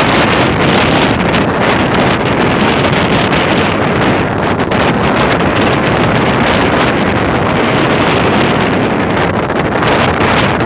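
Steady rushing ocean noise with wind buffeting the microphone, loud and even throughout.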